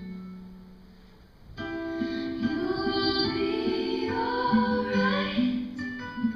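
Music: a female voice singing a slow melody in long held notes over instrumental backing. It fades to a soft pause, and the voice comes back in about a second and a half in.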